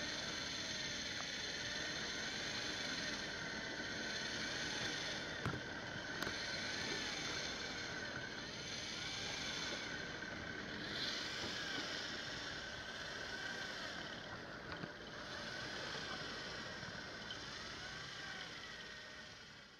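Electric deep-drop fishing reel's motor and gears whining as it winds line in, the pitch swelling up and down again and again, over a steady hiss.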